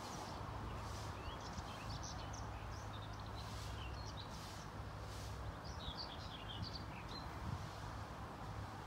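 Small birds chirping in scattered short calls, with clusters about a second to three seconds in and again about six seconds in, over a steady low hum of outdoor background noise.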